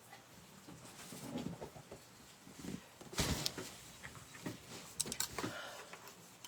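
Scattered light knocks, taps and rustles of objects being handled, the loudest cluster about three seconds in, then a few sharp clicks around five seconds.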